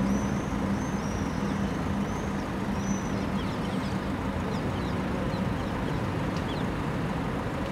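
Steady outdoor traffic hum with a low engine drone that fades about halfway. A bird's short, high chirps repeat about six times over the first three seconds.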